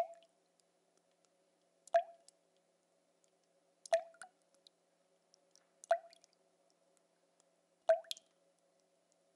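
Water drops falling at an even pace, one about every two seconds, each a short plink, over a faint steady hum.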